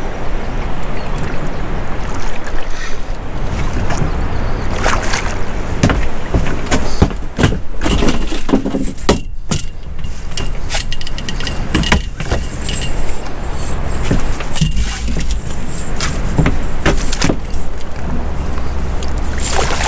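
Steady low hum of a small fishing boat with frequent knocks and clatter of handling on board.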